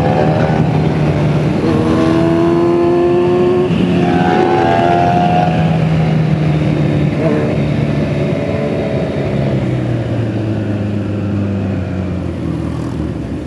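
Motorcycle engine under way, its pitch rising and dropping a few times through gear changes in the first seconds, then falling off as the bike slows.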